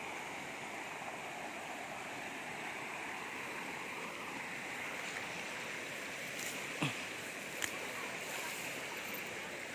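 Shallow river rushing steadily over rocks in small rapids. Two short sharp clicks come about two-thirds of the way through.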